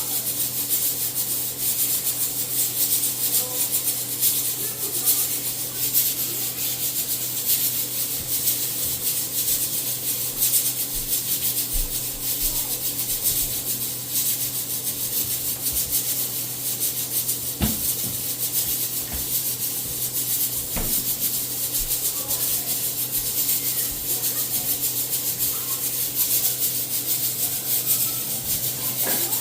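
Festival dumplings frying in hot oil: a steady sizzle with fine crackling, over a steady low hum.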